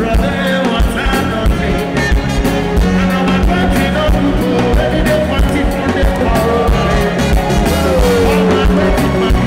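Upbeat music with a steady drum beat and a singing voice.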